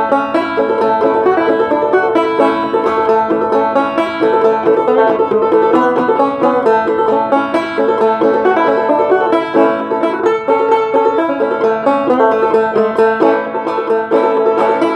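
Open-back banjo played clawhammer style: a steady, even run of plucked notes, the tune played straight, without syncopation.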